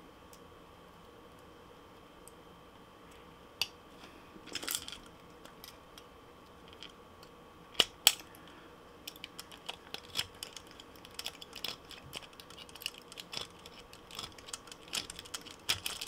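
Split ring pliers and a steel split ring clicking as a treble hook is worked onto the lure's hook eye: a few sharper clicks in the first half, then a run of small quick metal ticks from about nine seconds in.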